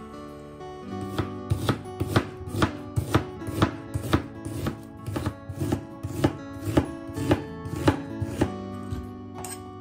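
Chef's knife slicing a red onion on a cutting board: a steady run of knife strokes hitting the board, about two a second, starting about a second in and stopping near the end.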